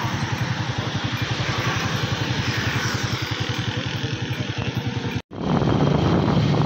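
Motorcycle engine running with a fast, even low pulse over road noise. About five seconds in the sound cuts out abruptly and comes back louder.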